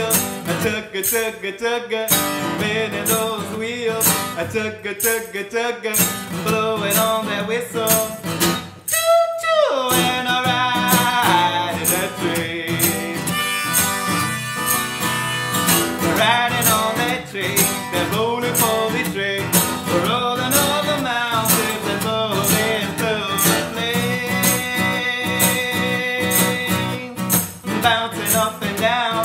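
Country-style music on acoustic guitar, strummed, with a harmonica played on a neck rack carrying held notes. About nine seconds in there is a falling swoop in pitch.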